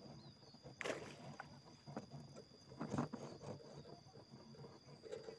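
Quiet outdoor ambience with a steady high thin tone and scattered soft knocks and rustles, the loudest about one and three seconds in.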